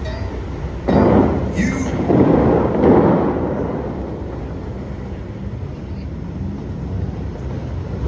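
Bellagio fountain's high water jets shooting up with sudden thunder-like booms, one about a second in and more around two to three seconds in, each followed by a rumble of falling water that fades away.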